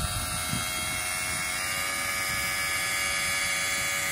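Small electric water transfer pump running steadily with an even whine, pumping water through a hose into an RV's fresh water tank.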